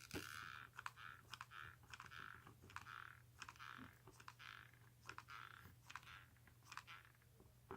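Faint handling noises from a small camera being fitted into a 3D-printed plastic mount: light plastic clicks and soft scraping and rubbing, irregular and repeated throughout.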